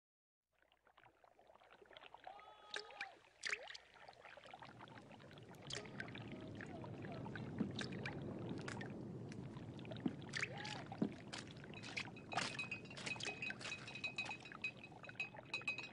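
Faint water sounds from an aquarium, trickling and splashing, that build up a few seconds in, with scattered sharp clicks.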